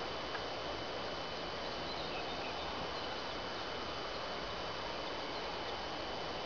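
Steady outdoor background hiss in a pine forest, with a thin constant high whine and a few faint bird chirps.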